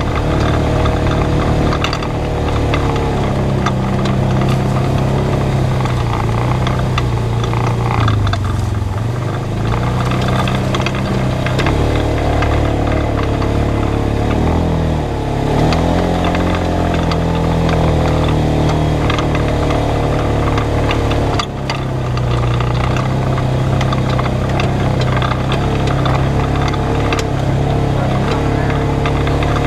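Polaris RZR 570 side-by-side's single-cylinder engine running as it drives a dirt trail, its pitch rising and falling with the throttle. The sound dips briefly about two-thirds of the way through.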